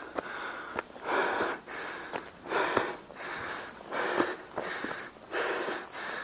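A hiker's heavy breathing while walking uphill, a noisy breath about every second and a half, with light footstep clicks on the trail between breaths.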